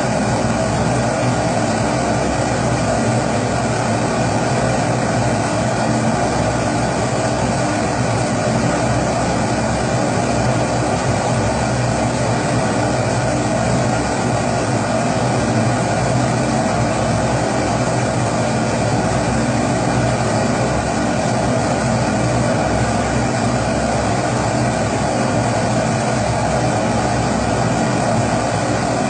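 Pressurised kerosene stove of the Primus type burning steadily: an even, unbroken rushing noise from the burner.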